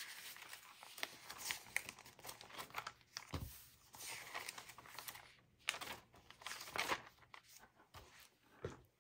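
Paper pages of a spiral-bound notebook being turned and smoothed flat by hand: irregular rustling and crinkling with small taps, and a soft low thump about three and a half seconds in.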